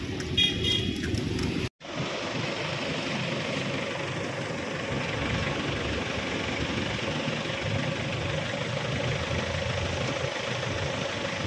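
A motor vehicle engine running steadily, with a faint steady hum over it. Near the start there is a brief high toot, and about two seconds in the sound cuts out for an instant.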